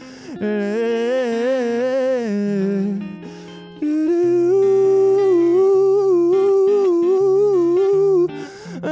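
Male voice singing wordless held notes with wide vibrato over acoustic guitar accompaniment. A long, loud held note starts about four seconds in and runs until shortly before the end.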